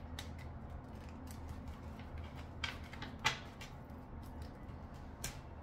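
A deck of oracle cards handled and tapped against a table: a few short, sharp clicks over a low steady hum.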